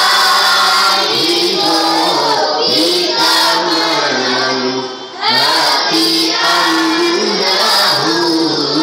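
A group of voices singing a song together, with a short break in the singing about five seconds in.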